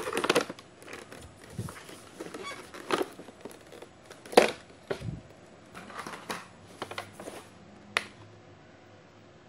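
Hands handling an action camera's box and packaging: irregular rustling and crinkling with sharp clicks and knocks. The loudest moments are a rustling burst at the start and a sharp knock about four and a half seconds in.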